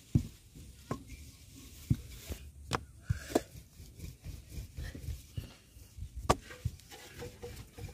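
Wooden rolling pin rolling out dough on a floured wooden plank table: a low rolling rumble with about half a dozen sharp, irregular knocks as the pin strikes the tabletop.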